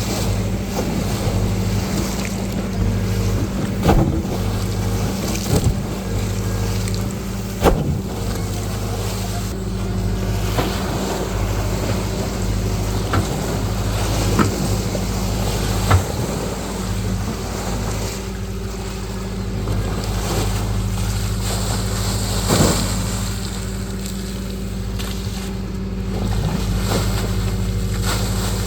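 Engine running at a steady speed, with a sharp knock now and then.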